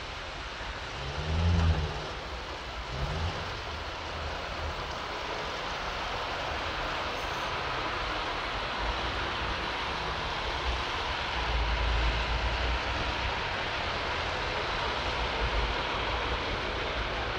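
Neoplan Tourliner coach's diesel engine running as the coach pulls away and drives slowly past, its note briefly rising and falling in the first few seconds. A steady hiss of tyres on the wet road runs under it.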